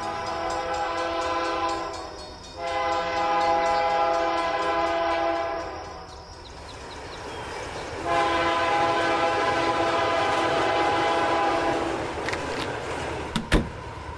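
Train horn sounding three long blasts, each a chord of several steady tones, over a low rumble; a couple of sharp clicks near the end.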